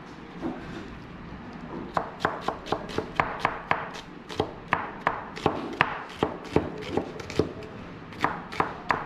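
Kitchen knife slicing red onions on a cutting board: a few faint strokes at first, then from about two seconds in a quick, steady run of knife taps on the board, about four a second.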